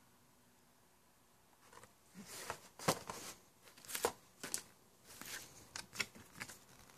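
Plastic toy packaging and clear plastic bags crinkling and rustling as they are handled, in a run of short, sharp crackles and clicks that starts about two seconds in.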